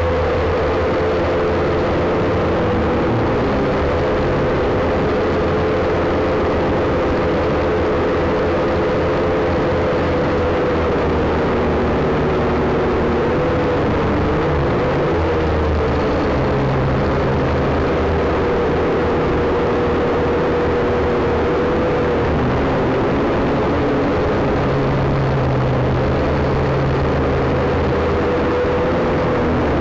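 WLtoys V222 quadcopter's motors and propellers whining steadily, heard through its onboard camera, several close pitches wavering and bending apart as the motors speed up and slow down, most markedly about halfway through. Under it a low rumble of wind on the microphone.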